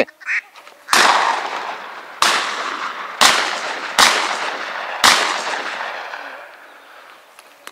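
Five shotgun shots over about four seconds, each trailing a long rolling echo that fades across the marsh. The shots are fired at ducks flying over the hunters.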